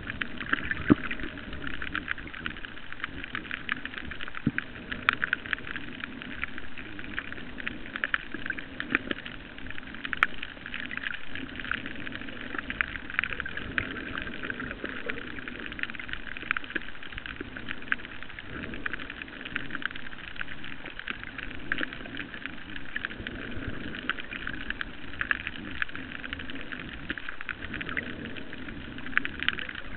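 Underwater reef ambience: a dense, steady crackle of countless tiny clicks over a low, shifting murmur.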